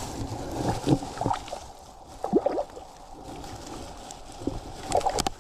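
Water sloshing and gurgling in uneven splashes, with a couple of sharp knocks near the end.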